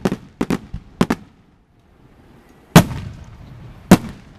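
Aerial fireworks shells bursting. A quick string of sharp cracks comes in the first second, then a pause, then two loud booms about a second apart, each with a short echo.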